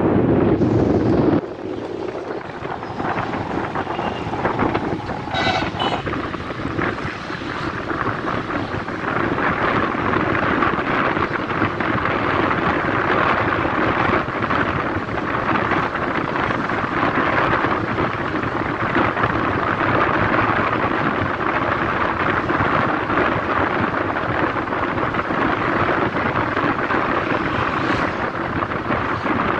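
Wind rushing over the microphone with the road and engine noise of an open vehicle travelling along a road. A heavy low buffeting for about the first second and a half drops to a steadier rushing noise.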